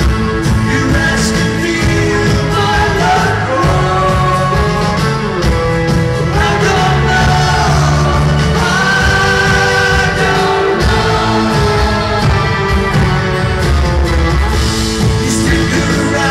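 Live rock band performance with a male lead vocal over acoustic guitar and drums, loud and continuous, heard from the audience in a large arena.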